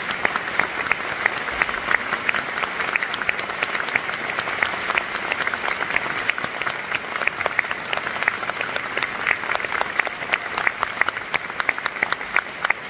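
Concert hall audience applauding steadily, a dense patter of clapping with single sharper claps standing out above it.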